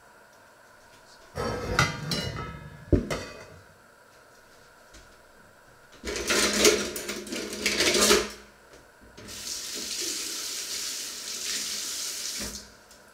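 Dishes and metal pans clattering in a kitchen sink, then a loud burst of water splashing onto them. Near the end a tap runs steadily for about three seconds and is turned off.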